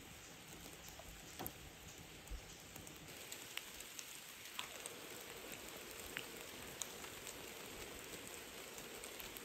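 Light rain, quiet, with scattered raindrops ticking at irregular moments.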